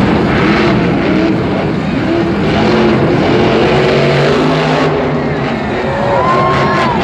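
Monster trucks' supercharged V8 engines revving hard as they race, their pitch rising and falling over and over.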